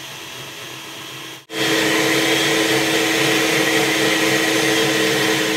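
Countertop blender motor running, frothing hot milk. About a second and a half in, the sound drops out briefly and comes back much louder, a steady whir with a fixed-pitch hum.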